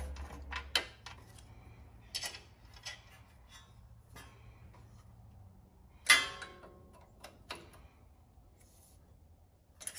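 Ratchet wrench clicking in short, scattered runs as muffler bolts are snugged up on a small engine, with one sharp ringing metal clink about six seconds in.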